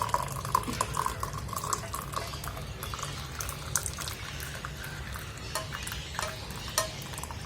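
Hot herbal kadha being poured from a pan through a tea strainer into a cup: the liquid trickles steadily for the first couple of seconds, then tails off into scattered light clicks and drips.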